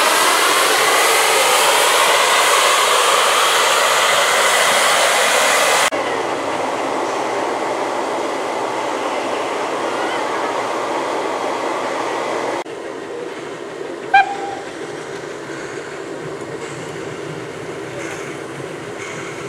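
Loud steam hiss from the open cylinder drain cocks of LSWR Beattie 2-4-0 well tank 30587 as it moves along, cutting off about six seconds in. Then comes a quieter steady background of train sound, with one short steam whistle toot about two-thirds of the way through.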